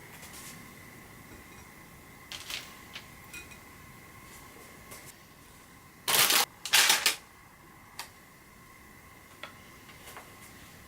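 Light clicks and taps, then two loud, crisp crackles about half a second apart roughly six seconds in, from an eating show of fried chicken karaage, over a faint steady electrical hum.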